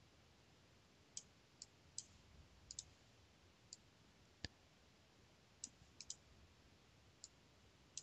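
About a dozen faint computer mouse clicks at irregular intervals over near silence.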